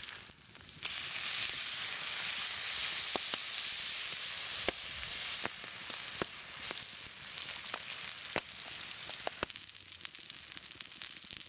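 Food sizzling on a hot cooking stone, with scattered sharp pops and crackles of spitting fat. The sizzle surges about a second in, then slowly eases.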